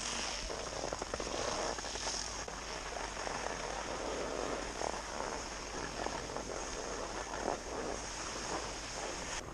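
Skis sliding over snow with wind rushing on the action camera's microphone, a steady hiss and rush.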